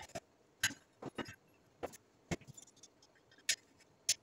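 About ten irregular metallic clicks and clinks of steel parts and hand tools being handled and set down: a steel bar, tube and locking pliers.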